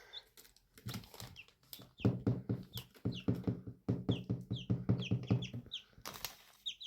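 A hen clucking in a rapid series of low calls, with newly hatched chicks peeping in short, high, falling chirps.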